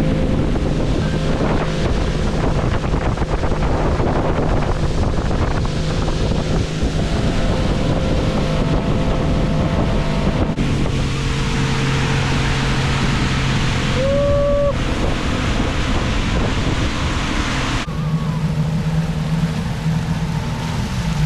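A motor running steadily under heavy wind and water rush, with a short steady tone about two-thirds of the way through; the sound changes abruptly twice.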